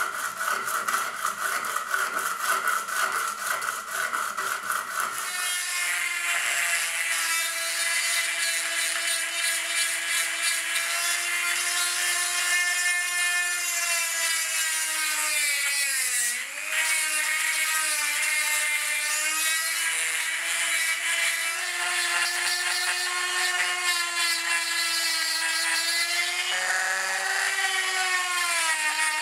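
Steel hammer head rubbed quickly back and forth on sandpaper, a fast scratching, for about five seconds. Then a high-speed rotary tool with a small abrasive bit whines steadily as it sands the steel hammer head, its pitch sagging whenever the bit is pressed in, with one sharp dip about halfway through.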